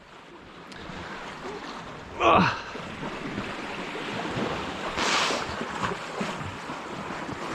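Sea washing against the rocky shore, a steady rushing hiss, with a brief louder surge of noise about five seconds in. A short voice sound breaks in about two seconds in.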